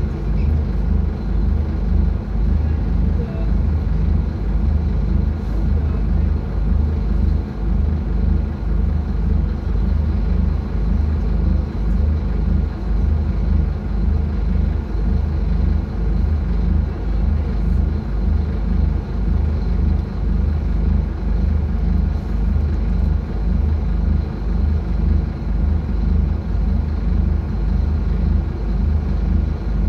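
Scania K250UB city bus's rear-mounted diesel engine running with a steady low rumble, heard from inside the passenger cabin.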